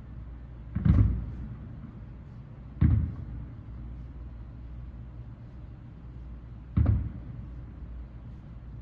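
Distant aerial fireworks shells bursting: three booms, about a second, three seconds and seven seconds in, each dying away in a short rumble.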